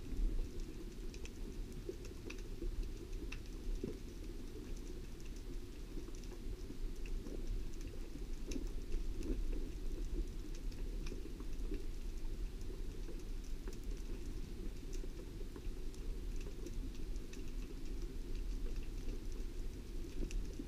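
Underwater sea ambience: a steady low rumble with many scattered crackling clicks and ticks.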